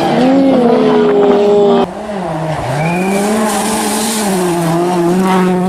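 Mitsubishi Outlander's 3.0-litre V6 under full-throttle acceleration on a test drive after a timing-belt change, the engine note climbing and falling. About two and a half seconds in its pitch dips sharply and climbs again, as at a gear change.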